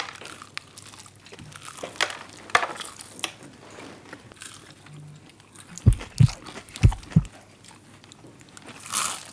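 Crunchy bites into crispy McDonald's extra-spicy fried chicken and chewing, with scattered crisp crunches in the first few seconds. A little past the middle come four dull low thumps in quick succession, the loudest sounds here, and a short breathy rush near the end.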